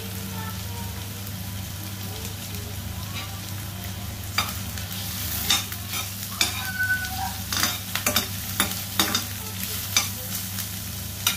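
Chopped aromatics sizzling gently in oil in a stainless steel wok, over a low steady hum. From about four seconds in, a metal spoon stirs them, clinking and scraping against the wok a dozen or so times.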